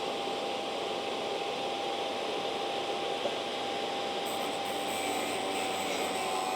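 Drill Doctor drill-bit sharpener's small electric motor running steadily with a constant hum as the bit is ground against its wheel to cut the relief. A higher grinding hiss joins about four seconds in.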